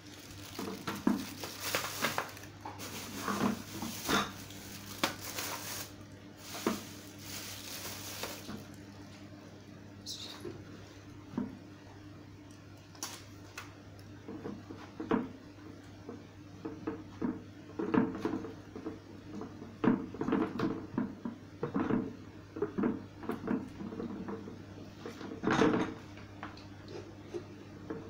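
Plastic parts of a wet/dry drum vacuum cleaner being handled, unplugged and not running: irregular knocks and clatter as the motor head and drum are moved and accessories are taken out, with plastic bags rustling, mostly in the first several seconds.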